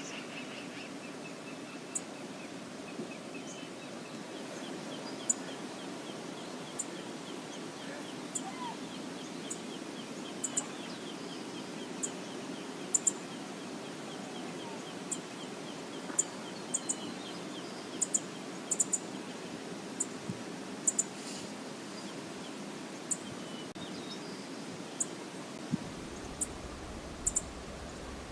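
Outdoor river ambience: a steady rush of moving water, with a bird trilling in the first half and many short, sharp high-pitched chip notes scattered throughout. A low rumble comes in near the end.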